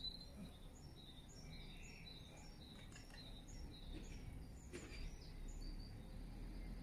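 Small birds chirping and singing: many short, high calls scattered throughout, faint over a low, steady outdoor background.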